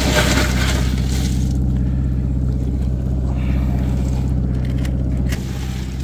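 Boat engine running steadily while trolling, its low hum dipping slightly about five seconds in. Near the start, ice crunches and rustles in the cooler as a salmon is pushed down into it.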